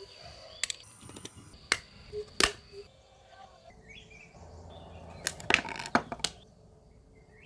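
Several sharp knocks, a few spread out at first, then a quick cluster of them about five to six seconds in.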